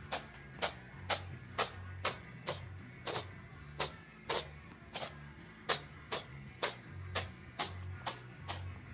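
Background music with a steady beat: crisp percussion ticks about twice a second over low bass notes.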